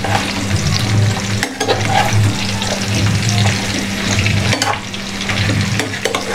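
Amla (Indian gooseberries) and green chillies sizzling as they fry in hot oil in a metal kadhai, stirred with a perforated steel skimmer that scrapes and clinks against the pan a few times. A steady low hum runs underneath.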